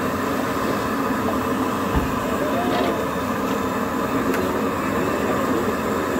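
Bedai frying in a large kadhai of hot oil over a gas burner: a steady sizzling din, with a single knock about two seconds in.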